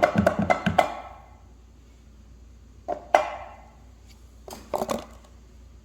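A few light knocks and metallic clinks from tools and parts being handled at a workbench. The loudest is a single knock about three seconds in with a short ring, followed by a quick run of clicks near the end.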